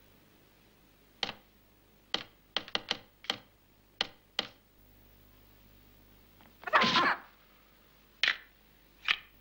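Nunchaku being swung and striking: a string of short, sharp swishes and smacks, several in quick succession between about two and three seconds in, with a louder, longer burst about seven seconds in.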